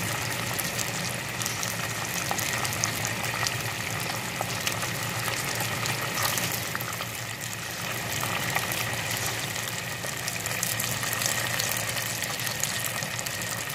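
Battered chicken wings deep-frying in a pot of hot oil: a steady bubbling sizzle full of small crackles.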